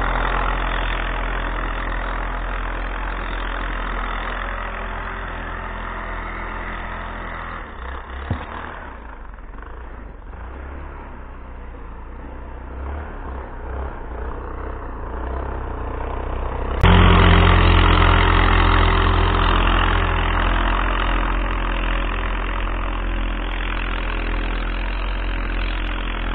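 Yamaha Grizzly 660 ATV's single-cylinder four-stroke engine running under load as the quad climbs a hill, fading as it pulls away. A little past halfway the engine sound suddenly jumps much louder and stays steady.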